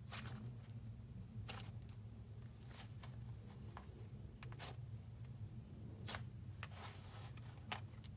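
Slime being handled and stretched, giving faint, irregular small clicks and pops, about eight in all, over a steady low hum.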